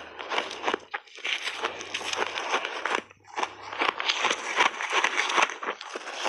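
Mixed-berry shaved ice crunching up close as it is chewed in big mouthfuls and grabbed by gloved handfuls: a rapid run of crisp, crackling crunches with brief pauses about one and three seconds in.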